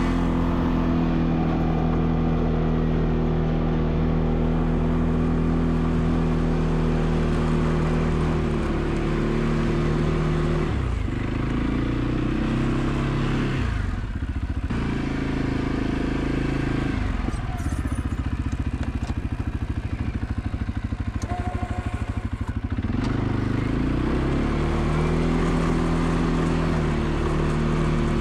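ATV engine running steadily while plowing snow, dropping in pitch a couple of times past the middle. It settles into a low, evenly pulsing idle for several seconds, as when the machine stops to change direction, then revs back up near the end.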